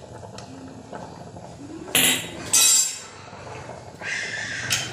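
Steel ladle scraping and clinking against the inside of a metal pressure-cooker pot, with two loud scrapes about two seconds in. Metal clinks follow near the end as the pressure-cooker lid is handled.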